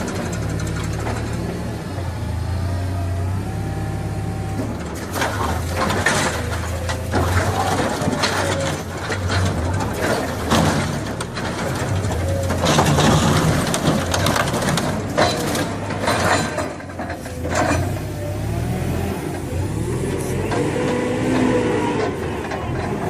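Engine of heavy construction machinery running steadily, with frequent metallic clanks and knocks over the low hum.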